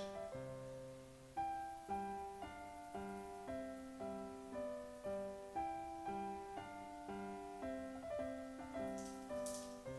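Background piano music: a steady, even run of notes over a low accompaniment.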